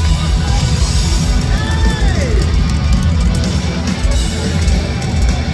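Heavy metal band playing live through the PA, heard from within the crowd: drums, bass and distorted guitars, with a note sliding down about two seconds in.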